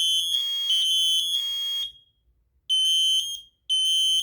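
HG-135F smoke alarm in test mode sounding its shrill horn in pulses, between its spoken "Fire" warnings. The tone breaks off about two seconds in, then returns as short beeps about once a second.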